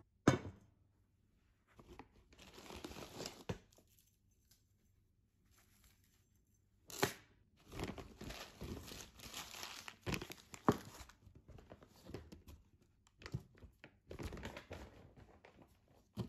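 Crumpled newspaper wrapping crinkling and rustling as it is handled, with several sharp knocks of objects set down on a hard tabletop, the loudest just after the start.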